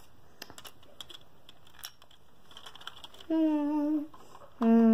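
Light scattered clicks of plastic Lego pieces being handled, then a voice humming one held note about three seconds in, with another hummed note starting near the end.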